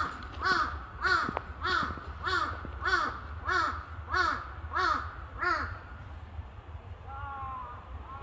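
A crow cawing in a rapid even series of about ten harsh caws, a little under two a second, stopping about five and a half seconds in; a softer, flatter call follows near the end. A steady low rumble runs underneath.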